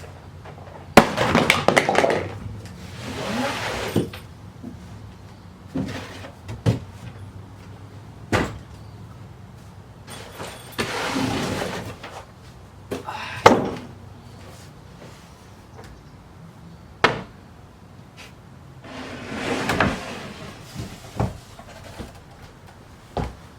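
Handling noises: several sharp knocks and clunks, with three stretches of rustling and scraping as objects are moved about.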